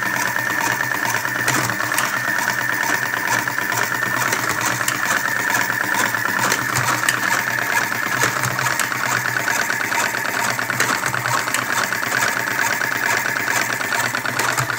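Small 12-volt motor of an electric cigarette-tube filling machine with an automatic tobacco hopper, running steadily with a rapid buzzing whir.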